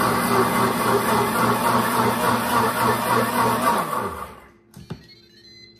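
Countertop blender motor running steadily as it blends pancake batter, then switched off a little under four seconds in, its pitch falling as the motor winds down. A light knock follows.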